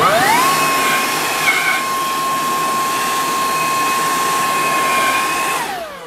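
Makita DUB362Z 36V cordless leaf blower spinning up with a quickly rising whine, then running at full speed with a steady high whine over a loud rush of air. It is switched off near the end and its pitch falls as it winds down.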